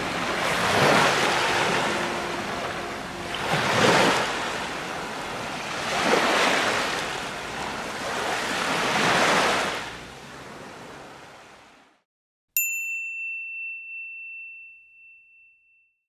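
Sea waves washing in, the surf swelling and ebbing about every three seconds before fading out. Then a single bell-like ding starts suddenly and rings down over a few seconds.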